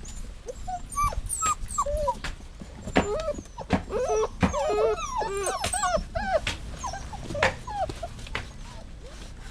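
Dog whining and whimpering: a quick series of short, high cries that rise and fall in pitch, several overlapping in the middle, mixed with a few sharp clicks.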